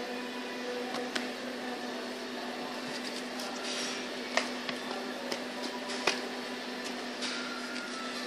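Multifunction vegetable slicing machine running with a steady motor hum while slicing carrots, with a few sharp clicks and taps as slices drop into a plastic crate.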